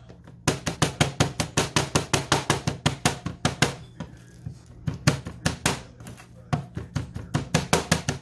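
A cleaver chopping rapidly on a plastic cutting board, mincing a mound of food, about five or six strokes a second. There are short pauses about four and six seconds in.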